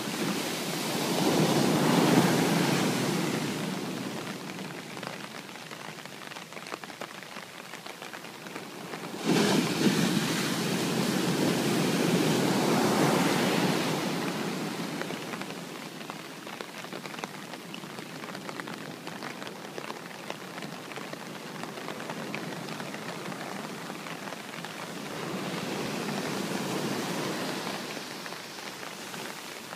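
Sea waves breaking on the shore over a steady hiss of rain. Three surges of surf: one about a second in, a louder one that breaks suddenly about nine seconds in and washes on for several seconds, and a weaker one near the end.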